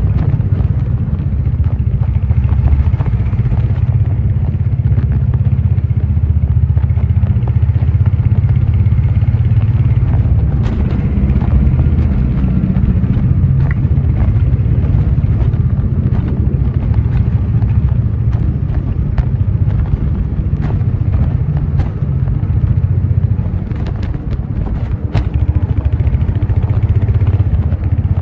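Royal Enfield Hunter 350's single-cylinder engine and exhaust running steadily on the move, easing off briefly about two-thirds of the way through before picking up again.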